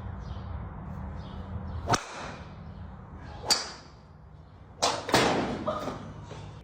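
Several sharp cracking hits over a low steady rumble: single hits about two seconds in and again a second and a half later, then the loudest cluster near five seconds in, trailing off in a noisy rush for about a second.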